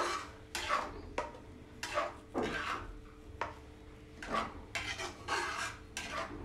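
Flat metal spatula scraping around a metal kadai as it stirs thick tomato gravy, about ten short rasping strokes at an uneven pace.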